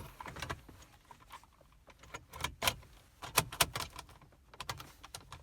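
Irregular sharp clicks and knocks in small clusters: the car radio's mounting frame and the surrounding hard plastic dashboard trim being handled and pressed into place.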